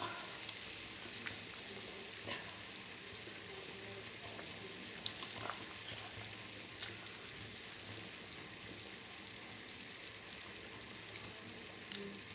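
Tamarind fish curry boiling in a clay pot just after the fish has gone in: a steady sizzling hiss with a few small pops here and there.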